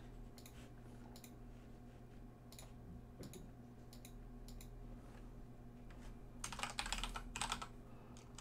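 Computer keyboard typing: a few scattered keystrokes, then a quick run of typing from about six and a half to eight seconds in, over a faint steady hum.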